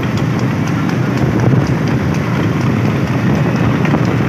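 Steady rumble of vehicle engine and wind noise, with the quick, regular clip-clop of a trotting horse's hooves on the road.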